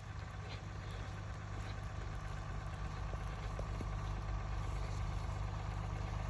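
A vehicle engine running steadily at idle, a low hum that grows gradually louder.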